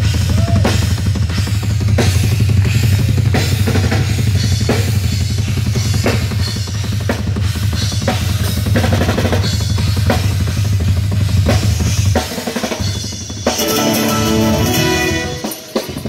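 Drum kit played at a band's sound check: kick and snare strokes about every two-thirds of a second over a low steady drone. The drone stops about three-quarters of the way in, and a few sustained electric guitar notes ring out near the end.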